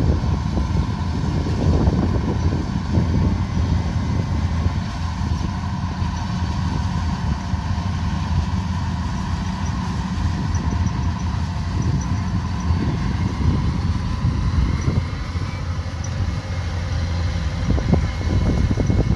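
Kubota DC105X combine harvester running steadily, a continuous low engine drone with a faint steady whine from the machinery.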